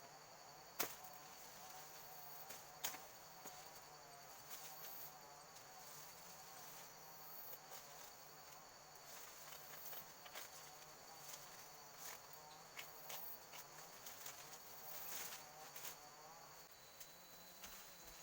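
Faint tropical forest insects giving steady high-pitched chirring, with a few sharp clicks, the loudest about a second in.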